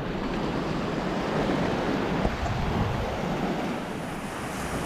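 Rough sea surf breaking heavily on a beach, a steady wash of waves, with wind rumbling on the microphone.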